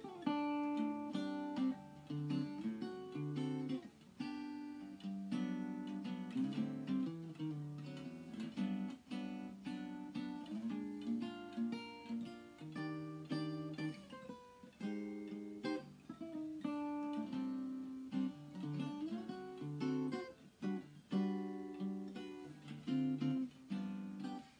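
Archtop hollow-body guitar played solo: jazz chords with a melody line picked above them, phrase by phrase with brief breaks between.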